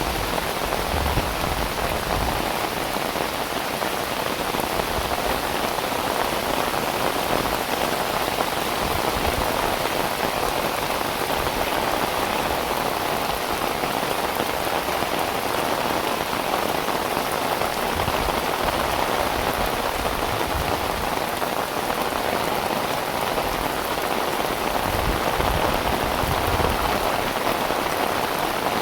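Heavy rain falling steadily, a dense even hiss of drops on surfaces, with occasional low rumbles of wind.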